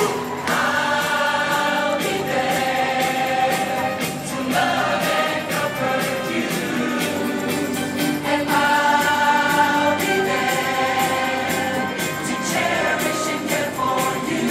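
A group of people singing a song together in chorus, holding notes in unison.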